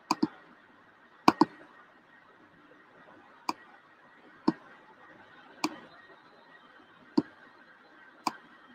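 Computer mouse clicking: short, sharp single clicks spaced about a second apart, with quick double clicks at the start and again about a second in, over a faint hiss.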